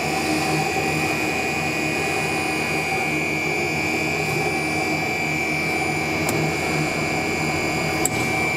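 PP straw extrusion line running: a steady mechanical hum with a constant high whine over it. One sharp click near the end.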